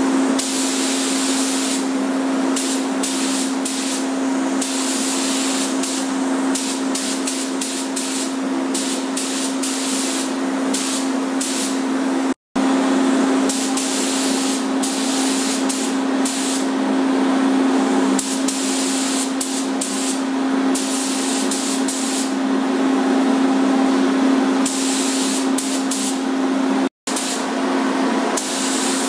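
Air-fed paint spray gun hissing, the spray switching on and off in short bursts as it is passed over the trim moldings, over a steady low hum.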